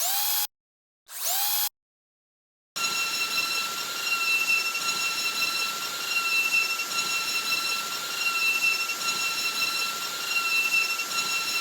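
Electric drill: two short trigger pulls, each spinning up with a rising whine, then a steady run of about nine seconds at a constant high whine that stops abruptly.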